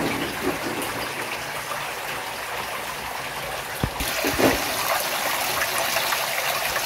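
Water rushing and splashing steadily, with a couple of low thumps about four seconds in.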